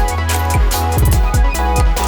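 Electronic background music with a steady beat: deep bass notes, kick drums and hi-hats.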